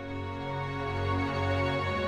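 Background music with sustained notes over a low bass line that changes notes every second or so.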